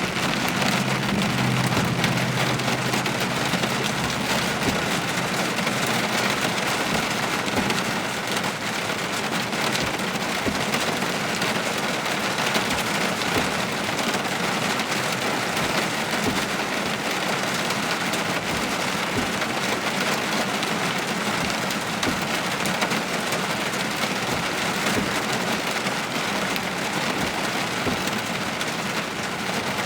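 Heavy thunderstorm rain pouring steadily, a dense even hiss with no letup. A low hum sits under it for the first few seconds.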